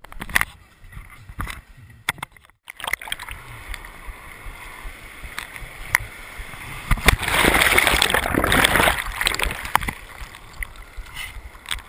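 Shallow sea surf lapping and gurgling around a camera held at the waterline, then a breaking wave washes over it about seven seconds in: a loud rush of foaming water lasting about two seconds before it eases.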